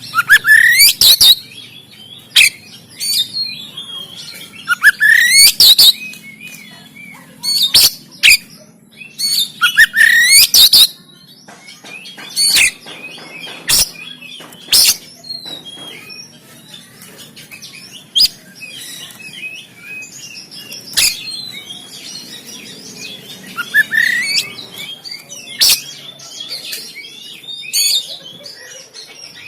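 Oriental magpie-robin singing in loud clusters of sharp, harsh notes and rising whistles, with short pauses between the clusters.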